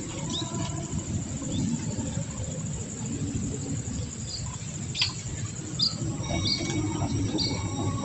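Small aviary songbirds giving short, high chirps from about halfway through, with a few held whistled notes near the end, over a steady low rumble.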